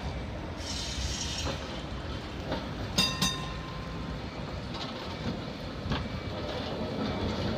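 Vintage wooden-bodied tram rolling slowly around a curve close by, its wheels clacking over rail joints and points. About three seconds in there is a brief, bright metallic ring.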